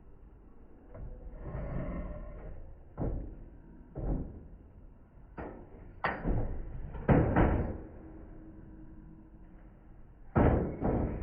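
A series of irregular knocks and bangs, about seven, from parts and tools being handled while working on an old air compressor. The loudest come about seven seconds in and near the end.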